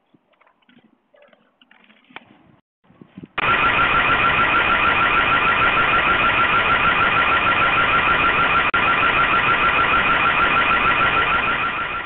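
Loud electronic alarm siren with a rapidly pulsing high tone. It switches on about three seconds in and cuts off right at the end.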